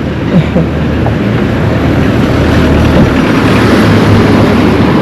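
Engine of a large motor vehicle running close by: a steady low rumble with road noise, growing a little louder and then holding.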